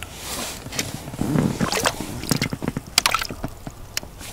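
Wet squishing and dripping with scattered small clicks and knocks, densest in the middle: a winter jigging rod and its wet line being handled in an inflatable boat.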